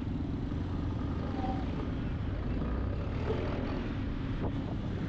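Yamaha Aerox v2 scooter's single-cylinder engine running at a low, steady speed while crawling in heavy traffic, with the hum of surrounding vehicles.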